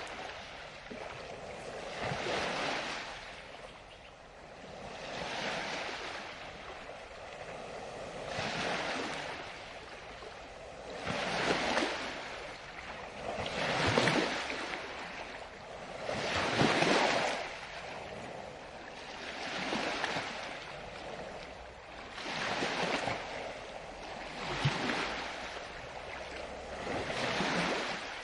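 Sea waves washing onto a shore, surging and receding in swells about every three seconds. The loudest surges come about 14 and 17 seconds in.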